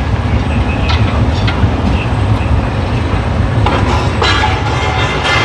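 A demolition excavator running with a steady low engine rumble while its attachment crunches and scrapes through concrete, the grinding getting louder about four seconds in.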